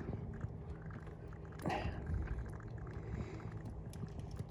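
Faint rustling and small clicks of a hand working blindly in an engine bay, pressing on the tab of an ignition coil's wiring connector, with one short louder noise about a second and a half in.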